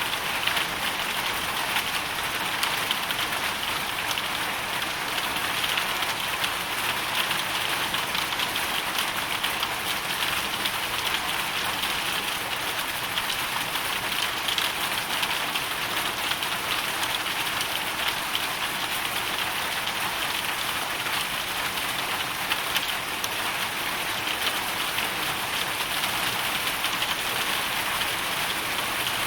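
Hailstorm: a steady, dense patter of hailstones and rain striking a hard surface, an unbroken crackling hiss with no letup.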